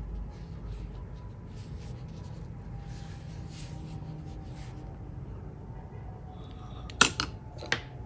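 Faint, intermittent rustle of a Chinese painting brush stroking across xuan paper. About seven seconds in come three sharp clicks as the brushes are handled.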